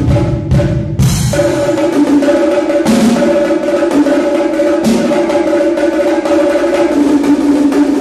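Drum kit played solo with fast, continuous stick strokes on the small high toms, the drums' pitches ringing steadily. Heavy low bass-drum strokes in the first second stop, leaving the tom strokes alone.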